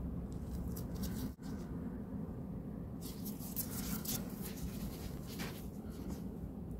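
Faint dry crackling and scratching of shed skin being lifted off a bearded dragon with metal tweezers, in short runs about half a second in and again from about three to five and a half seconds in, over a steady low hum.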